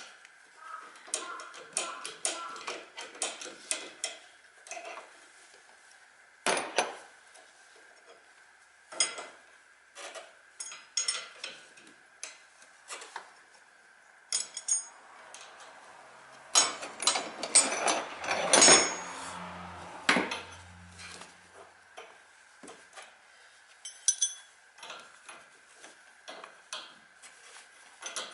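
Metal hand tools clinking and knocking during repair work, in scattered separate clicks with a denser run of clatter about two-thirds of the way through, over a faint steady high hum.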